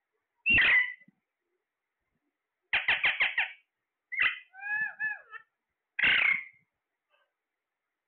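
Caged ring-necked parakeets calling: a loud call about half a second in, a fast run of about five short calls near three seconds, a call followed by wavering whistled notes, and another loud call about six seconds in.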